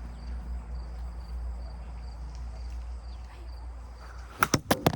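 Faint insects chirping in a steady repeating pulse over a low wind-like rumble, then four sharp knocks in quick succession near the end.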